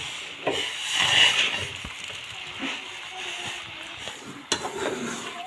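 Metal spoon stirring shredded cabbage and peas in a metal pan: the vegetables rustle and the spoon scrapes the pan, with one sharp knock about four and a half seconds in.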